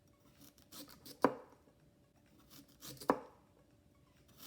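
Sharp kitchen knife slicing through a raw purple sweet potato into thin slices, twice, each stroke ending in a sharp knock.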